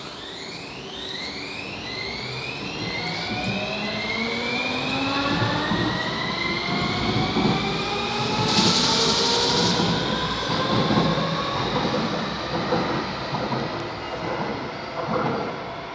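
Electric metro train pulling away from the platform: its traction drive whines in a run of rising tones, one climbing after another, under a growing rumble of wheels on rail. A short burst of hiss comes about nine seconds in.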